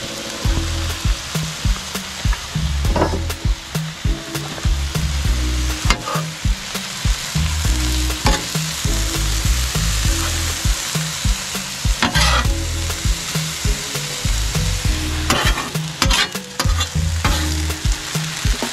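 Broccoli and onions sizzling steadily on a Blackstone flat-top griddle. A metal spatula scrapes and clatters on the steel cooktop a few times.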